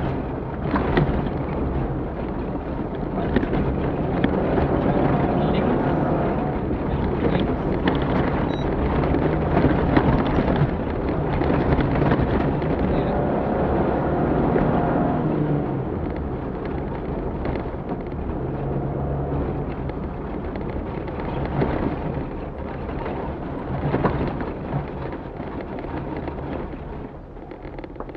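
Off-road rally vehicle's engine working hard over rough ground, its pitch rising and falling with the revs, with knocks and rattles from the bumpy track. It eases off near the end.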